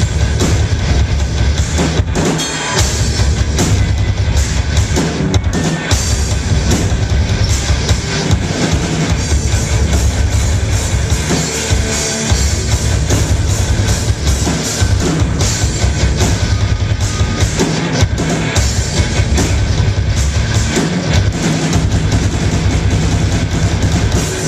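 Rock band playing live at full volume: electric guitars, bass, keyboard and a drum kit, with the drums hitting hard and steadily throughout.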